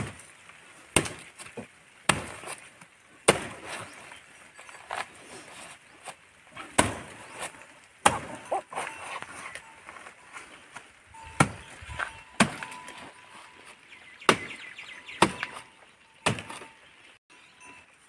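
A machete chopping into the fibrous base of a young palm: about a dozen sharp, irregular blows, one to two seconds apart.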